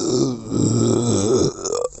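A person belching, long and drawn out: one belch runs on from before, breaks briefly about half a second in, then a deeper belch follows and fades, rising in pitch just before it ends.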